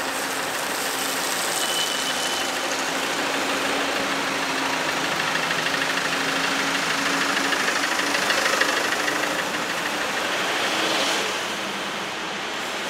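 A motor vehicle's engine running close by with a steady low hum, over a dense hiss of street noise. The sound swells and then falls away about eleven seconds in.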